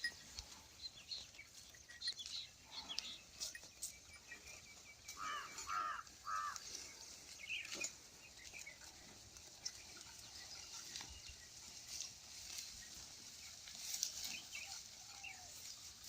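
Faint outdoor field ambience with scattered light clicks and a few short chirping calls, three of them close together about five seconds in.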